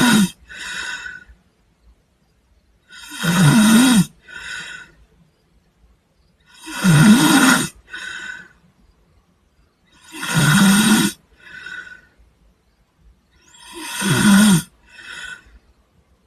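A sleeping person snoring in a slow, even rhythm, about every three and a half seconds: each loud, rattling snore is followed by a shorter, softer one.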